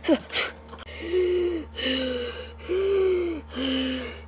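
A boy's voice making vocal sounds: a short falling groan at the start, then from about a second in a run of about five drawn-out, breathy sounds that alternate between a higher and a lower pitch.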